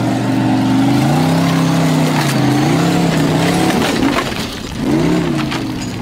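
Formula Offroad hill-climb buggy's engine at high revs as it claws up a steep dirt slope on paddle tyres. The revs rise and fall, with a sharp blip about five seconds in. Scattered clicks run through it, stones and gravel thrown up by the tyres.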